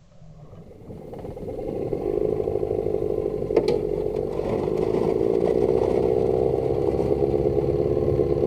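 A small boat engine running steadily, building up over the first couple of seconds, with one sharp click about three and a half seconds in.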